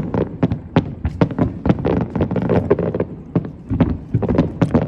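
Aerial fireworks bursting and crackling: a rapid, irregular run of sharp pops over a low rumble.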